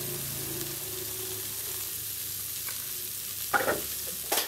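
Silkworms roasting in oil in a pan over medium heat, sizzling steadily. Two sharp knocks come near the end.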